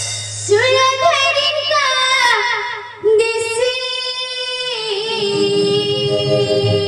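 A child sings a song from an Odia folk play in long, held notes with sliding ornaments: a first phrase, a brief break about three seconds in, then a second phrase that settles onto a lower held note. A low, steady hum runs underneath.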